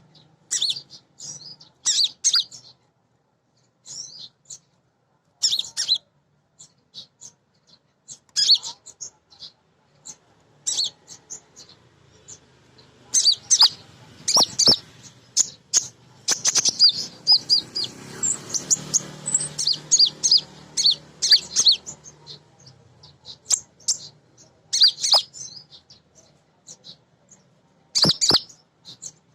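Female kolibri ninja, a sunbird, chirping: short, sharp, high-pitched calls in irregular clusters, coming fast and dense around the middle, with a couple of sharp clicks among them.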